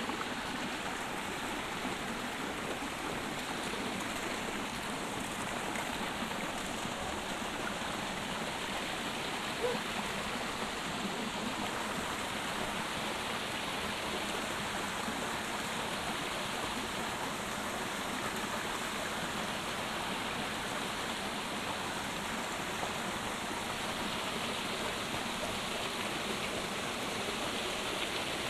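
Steady rushing of running water. A single brief click about ten seconds in.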